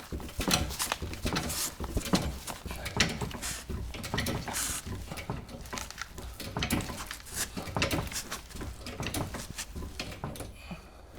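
Irregular knocks, scrapes and light metal clinks, a few each second, from the camera and the jacking gear being handled and moved about.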